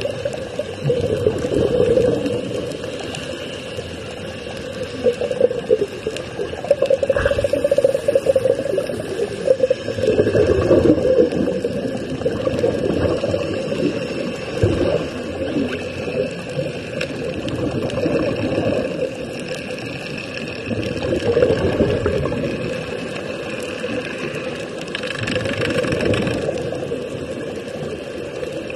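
Muffled underwater bubbling and rushing air, plausibly from the divers' air-fed sea-walk helmets venting, heard with the recording device underwater. It swells and falls in surges every few seconds.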